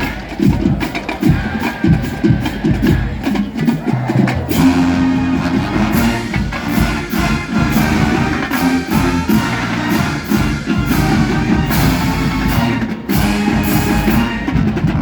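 College marching band playing: drums alone at first, then the brass joins with held chords over the drums about four and a half seconds in.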